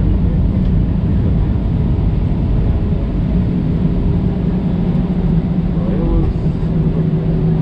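Airbus A320's jet engines at taxi power heard from inside the cabin over the wing: a steady low rumble with a steady hum that grows a little firmer about three seconds in.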